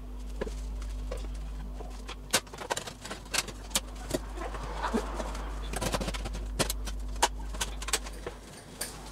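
Cooking clatter at a frying pan: a wooden spoon stirring a stew, then a glass pan lid being set on and things knocked about on the table. There is a quick run of sharp clicks and knocks from about two to seven seconds in, over a steady low hum.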